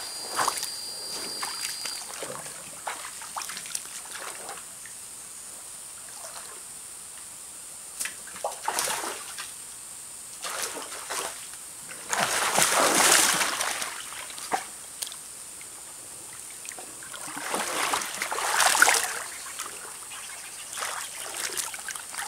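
Water splashing and sloshing as a person wades and stoops in a shallow stream. There are three louder bouts of splashing, about a third of the way in, around the middle, and later on, with quieter trickling and dripping between them.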